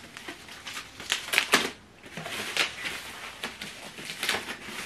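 A soundbar's white protective wrapping being handled and pulled off, giving irregular rustling and crinkling with a run of sharp crackles a little after a second in.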